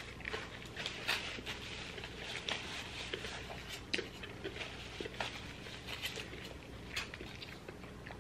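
Close-miked chewing and mouth sounds of people eating burgers and French fries: irregular small clicks and smacks.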